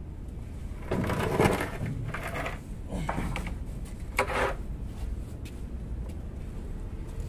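A few short metal scrapes and clunks of parts being handled at a transmission jack under a truck, with a steady low hum beneath.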